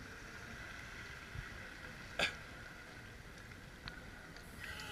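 Small waves lapping against a camera held at the water's surface: a faint steady hiss with one sharp slap about two seconds in and a couple of softer knocks.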